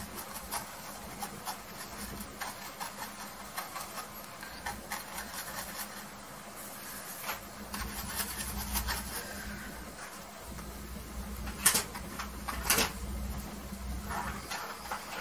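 Bristle paintbrush scrubbing oil paint onto a stretched canvas in short, repeated scratchy strokes. Two louder knocks come about three-quarters of the way through.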